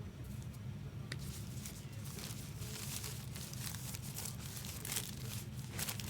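Foil trading-card pack wrappers crinkling and tearing as packs are opened by hand, a dense crackle that builds from about a second in, over a steady low hum.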